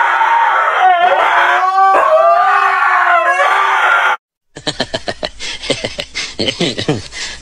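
Two huskies howling together, long overlapping howls that waver in pitch and cut off about four seconds in. After a brief gap comes a rapid run of short clicks and smacks, several a second.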